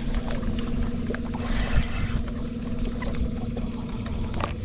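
Steady hum of a small electric motor on a boat, with water trickling and a low wind rumble on the microphone.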